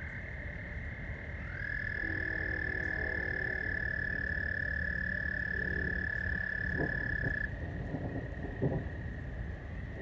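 Frogs calling in a steady high-pitched trilling chorus. About a second and a half in, one louder, long trill begins with a slight rise in pitch, holds steady for about six seconds and then stops. A faint low droning chord of tones lies underneath.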